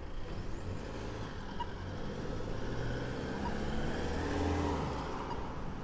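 A motor vehicle driving past on the street, its engine hum and tyre noise growing to its loudest about four seconds in, then fading.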